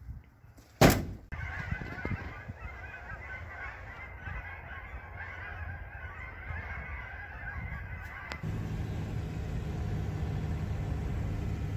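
A sharp knock about a second in, then a large flock of geese flying over, many birds honking at once. The honking stops about eight seconds in and a low steady rumble takes over.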